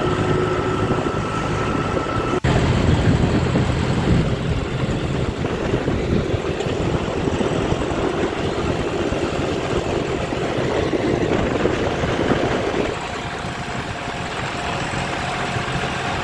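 John Deere 5039 tractor's three-cylinder diesel engine running as the tractor drives along a road, with wind and road noise. There is a brief dropout about two and a half seconds in, and the sound drops a little in level near the end.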